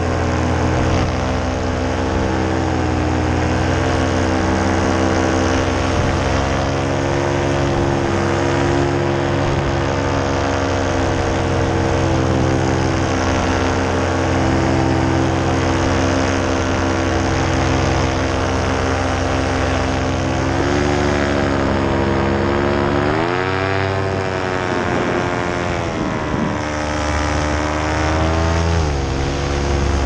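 Paramotor engine and propeller running steadily in flight. About two-thirds of the way in, and again near the end, the revs drop and pick up again.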